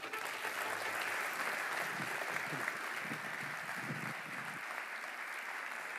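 Audience applauding, a steady clapping that eases slightly toward the end.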